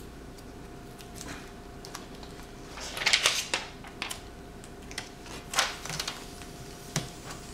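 Scattered light taps, clicks and plastic rustling as a replacement laptop LCD panel is handled and laid face down on the keyboard, the loudest rustle about three seconds in and another about five and a half seconds in, over a faint steady hum.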